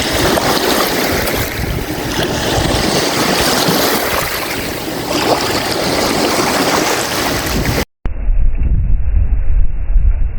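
Strong wind and choppy lake waves, a loud steady rushing noise. About eight seconds in it cuts out for an instant and is replaced by heavy low wind buffeting on the microphone.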